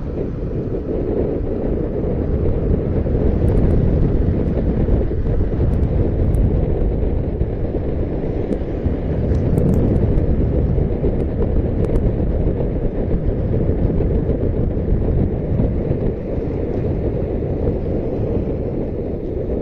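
Wind noise buffeting the microphone while riding an electric unicycle: a loud, steady rumble with a few faint ticks scattered through it.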